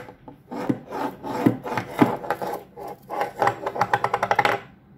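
A small dish scraping and knocking on a wooden surface as a conure pushes and drags it with its beak. About three and a half seconds in it chatters rapidly against the wood, about ten rattles a second, for a second before stopping.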